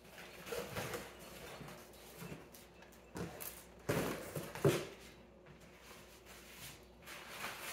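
Cardboard boxes being handled and set down on a wooden floor: rustling and scraping of cardboard with a few dull knocks in the middle, the last of them the loudest.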